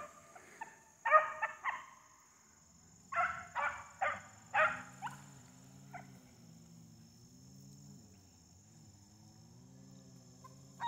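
Beagle puppies baying on a rabbit's track, faint, in short bursts: a quick run of bays about a second in and another from about three to five seconds. This is a hound opening up, giving tongue on the scent. A steady high insect drone runs underneath.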